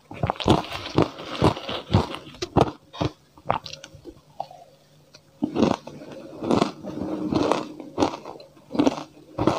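Close-miked crunching and chewing of matcha-powdered ice, about two crunches a second, easing off for a couple of seconds midway before the crunching starts again on a fresh mouthful.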